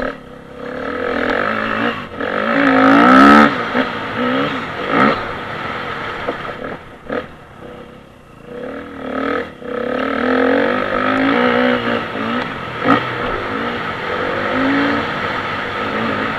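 Dirt bike engine revving hard and easing off through the corners, heard from a camera mounted on the moving bike. It is loudest about three seconds in, drops back off the throttle around seven to nine seconds in, then picks up again. A few sharp knocks cut through.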